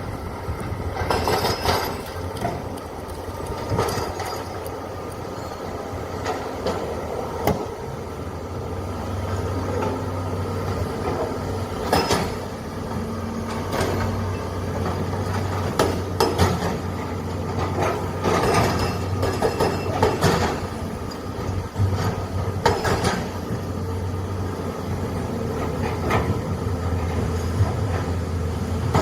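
Heavy excavator's diesel engine running steadily, with irregular sharp metallic clanks and knocks every few seconds.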